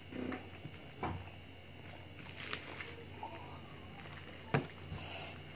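Drinking water from a glass, then a few light, sharp knocks and clinks as the glass is set down on the table, over faint steady room hum.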